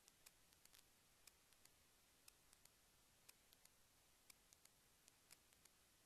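Near silence with faint, sharp clicks, about four a second. The strongest come regularly once a second, with weaker ones in between.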